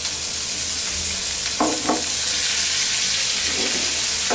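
Sliced onions sizzling steadily in hot oil in a frying pan. A spatula stirring them knocks against the pan twice in quick succession about one and a half seconds in, then a couple more times near the end.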